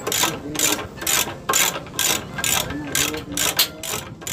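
Hand ratchet wrench clicking through quick back-and-forth strokes on a bolt, about three rasping bursts a second.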